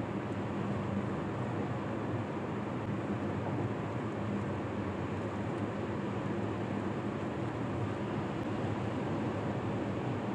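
Steady road and engine noise of a moving car, heard from inside the cabin, with a low hum.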